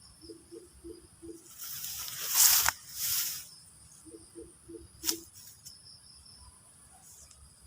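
Steady high-pitched insect chorus, with a whooshing swish about two seconds in that ends in a sharp snap, then a single sharp click about five seconds in. Two runs of four short, low, evenly spaced calls or knocks, one near the start and one before the click.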